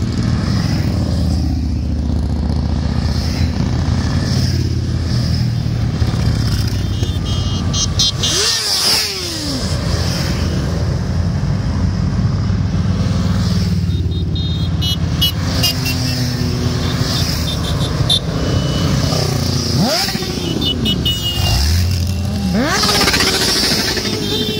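A long column of motorcycles, cruisers, scooters and sport bikes, riding past one after another, their engines running in a steady, continuous mass of sound. Several bikes' engine notes drop in pitch as they pass close, about a third of the way in and twice near the end.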